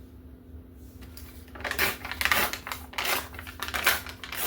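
Paper being handled and torn: a run of short, crackly noisy bursts starting about one and a half seconds in.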